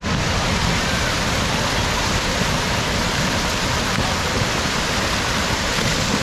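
Steady rush of running water, an even unbroken hiss.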